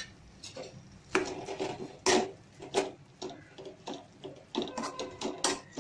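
Black plastic spatula stirring and scraping crushed sweet corn around a nonstick wok as the corn roasts in ghee, in a run of irregular scrapes.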